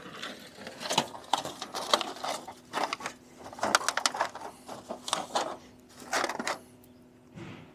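Disposable barbecue's aluminium foil tray and paper wrapper crinkling and clicking in irregular bursts as it is handled and fitted onto a small support, dying away near the end.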